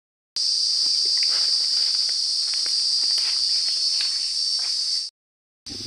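Steady, high-pitched drone of insects, with faint crunching steps on dry straw under it. It cuts in just after the start and cuts off abruptly near the end.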